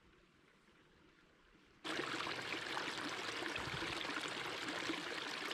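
Faint quiet forest air, then, about two seconds in, the sound switches suddenly to a small rocky creek running steadily, water splashing and gurgling over stones.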